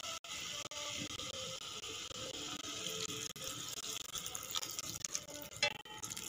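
Boiled peas and ground onion-tomato masala sizzling in oil in a steel kadai, with a steady hiss, while a plastic spatula stirs them.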